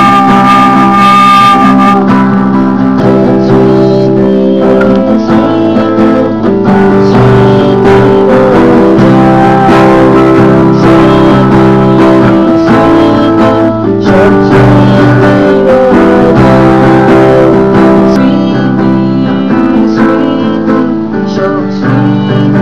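Acoustic guitar strummed in chords, with singing that stops about two seconds in; the guitar plays on as an instrumental passage between sung lines.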